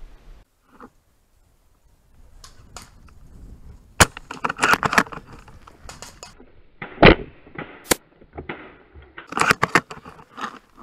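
Airsoft gunfire: a string of sharp cracks and clattering knocks. They come in a cluster about four seconds in, single loud cracks about seven and eight seconds in, and another cluster near the end.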